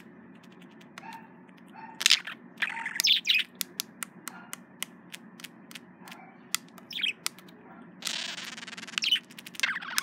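Male budgerigar chattering at its own reflection in courtship: short chirps and many sharp clicks, with a buzzy warble about eight seconds in.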